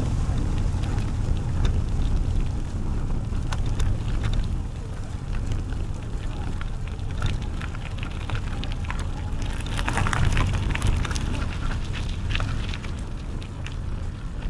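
Riding a bicycle: a steady low wind rumble on the microphone, with scattered crackling and ticking from the tyres and bike on the path, thickest about ten seconds in.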